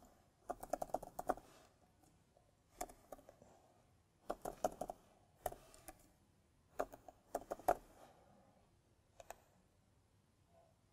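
Quiet computer keyboard typing in short bursts of keystrokes, as a name is typed and corrected, then two single clicks a little after nine seconds.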